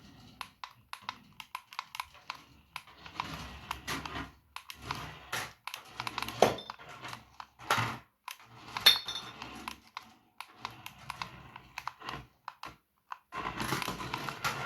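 Irregular plastic clicks, knocks and clattering from a toy remote-control rally car and its parts, with a brief high squeak about nine seconds in.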